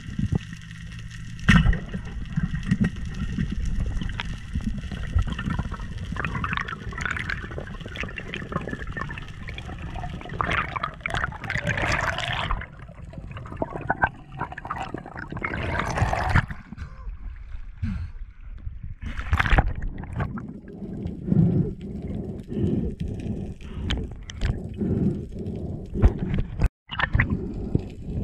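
Underwater sound through a dive camera: water rushing and gurgling around a swimming spearfisher, in uneven surges. A steady motor hum carries through the water for about the first twelve seconds, then fades.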